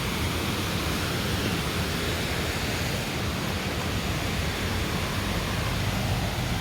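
Steady rushing noise of a waterfall, an even roar of falling water with no breaks.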